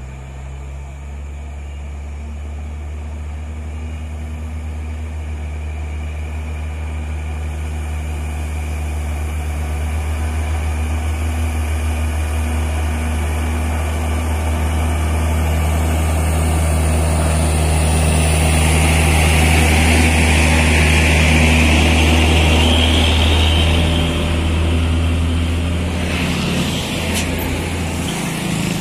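Diesel engine of a laden Hino 500-series truck pulling steadily at one pitch in a low gear up a climb. It grows louder as the truck comes up and passes close by, then eases slightly near the end.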